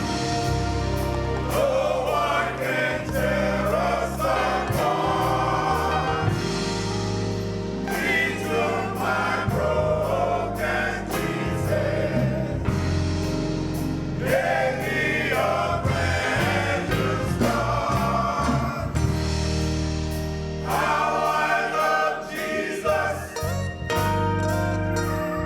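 Gospel choir singing with a band accompaniment of steady bass notes and a regular drum beat.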